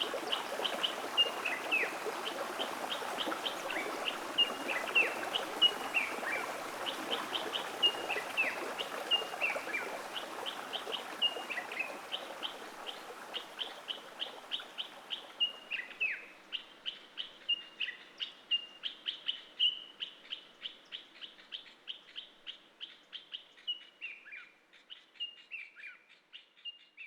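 Small birds chirping over and over, quick high notes and short downward-sweeping calls, over a steady rush of stream water. The water noise fades away through the first half, leaving the chirping, which itself fades near the end.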